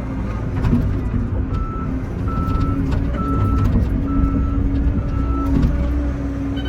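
Excavator engine running, with its alarm beeping about once a second, five beeps starting about a second and a half in, and scattered knocks and clanks.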